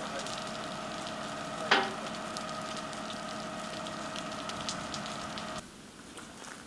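Burning house crackling and hissing, with one sharp crack about two seconds in, over a steady hum that cuts off suddenly near the end.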